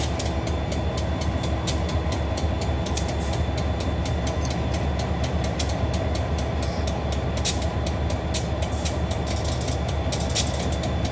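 Diesel locomotives, an EMD SD40-2 and a GP15-1, running at low speed through a grade crossing with a steady low engine rumble. A rapid, even ticking repeats about three times a second over the rumble.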